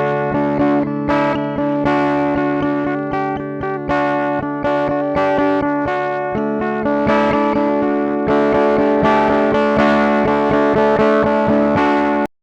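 Instrumental music: a quick run of plucked notes over sustained chords, which cuts off abruptly near the end.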